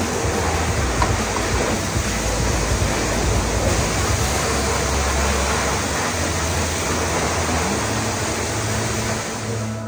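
High-pressure water spray washing down a delivery truck: a steady rushing hiss that does not let up, with a low hum underneath.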